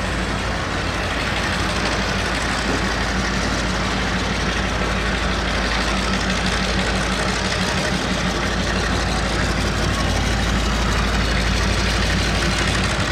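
Diesel locomotive engine running steadily as it hauls a freight train slowly along, a low even hum that grows slightly louder toward the end.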